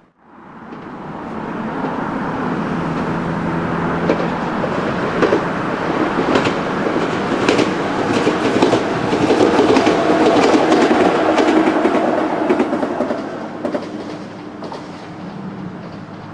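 JR West 113-series electric train passing, its wheels clicking over rail joints. It builds up from the start, is loudest about ten to twelve seconds in, then eases off near the end.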